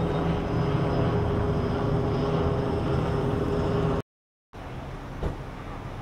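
Steady engine drone with a constant hum, cut off suddenly about four seconds in. After a short silence a quieter outdoor background follows, with a single sharp click.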